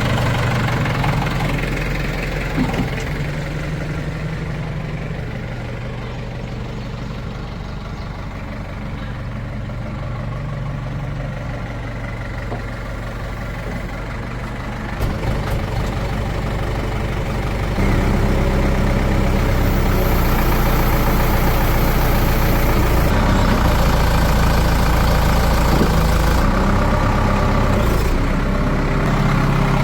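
Heavy diesel engine idling steadily, then running louder and deeper from about 18 seconds in as it is given more throttle.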